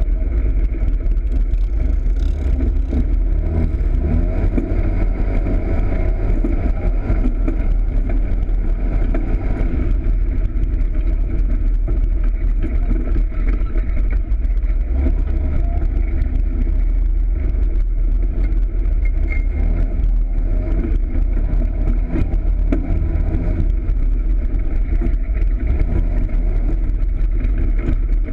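Polaris RZR side-by-side's engine, heard from on board while it drives, running steadily with its pitch rising and falling with the throttle.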